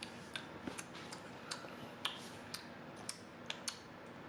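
Baby spoon-feeding noises: about a dozen small, sharp clicks and taps at irregular intervals.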